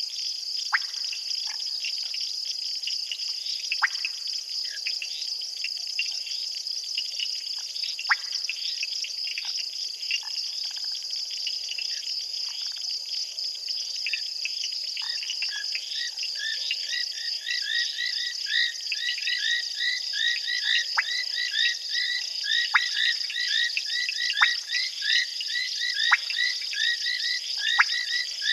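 Night chorus of frogs and insects at a waterhole: a steady high-pitched insect trill throughout, with scattered short sharp calls. About halfway through, frogs join in with rapidly repeated notes that grow stronger toward the end.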